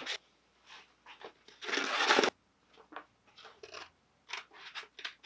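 Scissors cutting a stencil sheet, with the paper rustling: a longer, louder crinkling cut about two seconds in, then a run of short snips.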